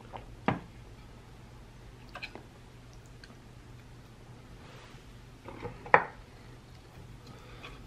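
Metal fork clinking and tapping on a ceramic plate while handling a piece of chicken: two sharp clinks, about half a second in and about six seconds in, with a few softer taps between. A faint steady hum underneath.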